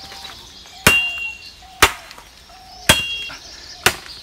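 Machete chopping into a standing tree trunk to fell it: four sharp strikes about a second apart.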